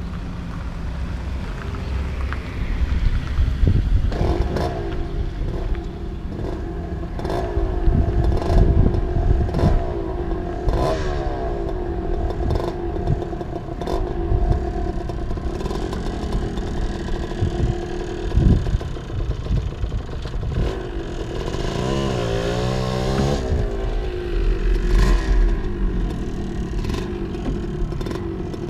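Small dirt-bike motorcycle engine running from about four seconds in, with uneven throttle blips and a few quick revs near the three-quarter mark as the bike pulls away.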